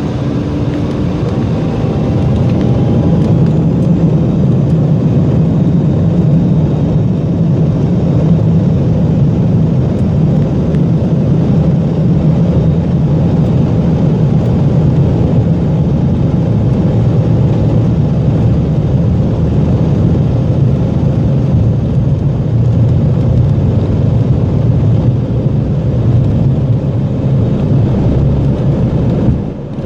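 Passenger jet airliner at takeoff power during the takeoff roll: a loud, steady rumble, with a faint rising whine in the first few seconds.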